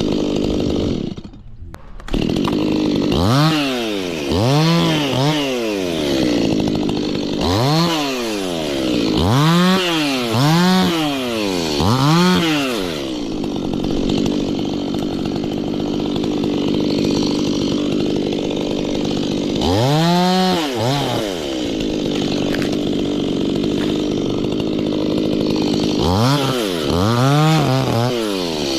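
Stihl two-stroke chainsaw idling, then revved up and back down again and again in short bursts, in several clusters.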